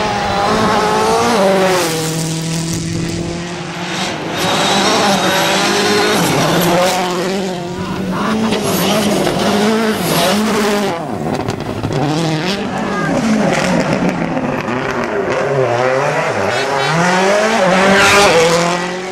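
Rally car engine at full throttle, its pitch climbing and dropping back again and again as it shifts through the gears.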